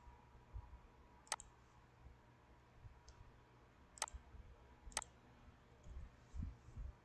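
Three sharp computer mouse-button clicks, one about a second in and two more close together near the end, over faint room tone.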